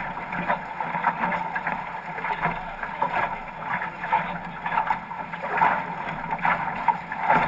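Water rushing along and splashing against the hull of a 505 racing dinghy under sail, with wind buffeting the microphone. A steady rush is broken by irregular slaps and splashes.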